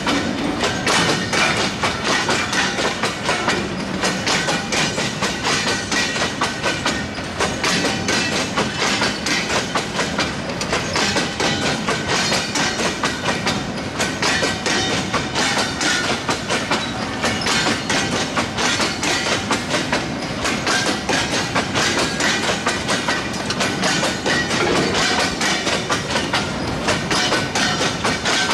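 Bogie tank wagons of a freight train rolling past close by, with a continuous steady clatter of wheels and quick clicks as they cross the rail joints.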